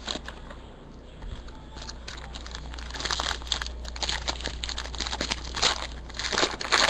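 Foil trading-card pack wrappers crinkling and tearing as packs are opened by hand, in irregular bursts that get busier about halfway through.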